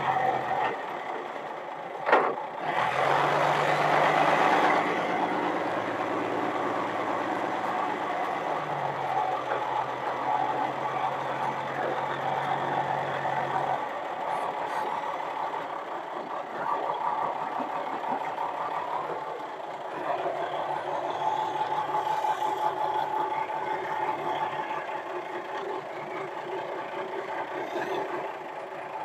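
Forklift engine running as the machine is driven and its lift levers worked, revving up about three seconds in and settling back, with a single sharp clack just before the rev.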